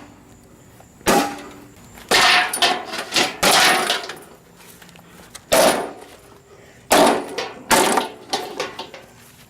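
A lawnmower being smashed: a series of heavy blows, about half a dozen at uneven intervals, each a metallic clang with a breaking, rattling tail.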